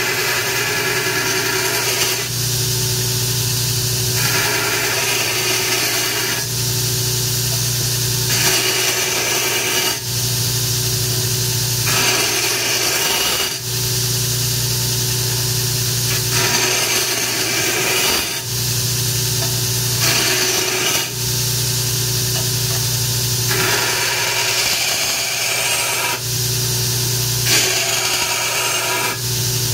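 Grizzly 2x72 belt grinder running while an AEB-L stainless steel knife blade is pressed against the moving belt and ground in repeated passes. The sound shifts between grinding and plain belt-and-motor running about every two seconds.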